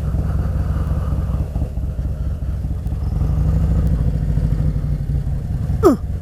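Motorcycle engine running steadily on the move, its note firming up a little about three seconds in, with two short falling squeaks near the end.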